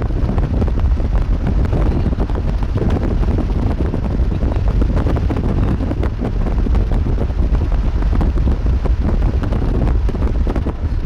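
Strong wind buffeting the microphone, a steady loud rumble with no breaks.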